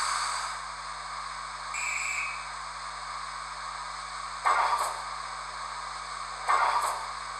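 Recorded steam sound effects from a Hornby HM7000 DCC sound decoder in a W1 'Hush Hush' model locomotive. A safety valve blow-off fades out in the first half second over a steady background hiss. About two seconds in a guard's whistle gives a short blast, and then come two coupling clanks about two seconds apart.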